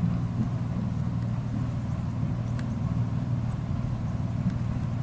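An engine running steadily at low speed, giving a deep, even hum with no change in speed.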